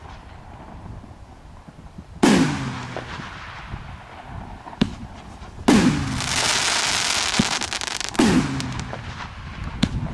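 TB201 professional fireworks cake (288 shots) firing: three loud aerial bursts about three seconds apart, each a sharp bang with a trailing echo. After the second bang a crackling hiss of burning stars goes on for about two seconds, and faint pops come between the bangs.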